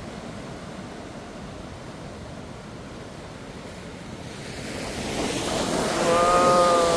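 Ocean surf washing below the pier, with breeze on the microphone; a wave swells and breaks louder in the last couple of seconds. A long drawn-out pitched sound rides over the surf near the end.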